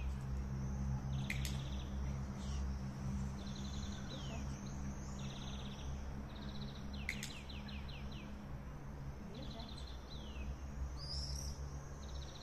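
A small songbird singing the same short phrase over and over, about every two seconds: a fast high trill followed by a few falling notes, over a steady low hum.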